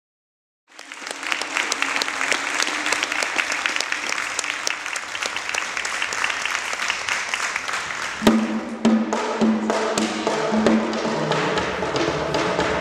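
Audience applause, then about eight seconds in, tall hand drums start playing a Haitian folkloric rhythm.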